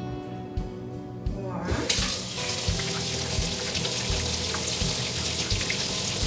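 Kitchen faucet water running into a stainless steel sink as hands are washed under it, starting about two seconds in and running steadily, over light background music.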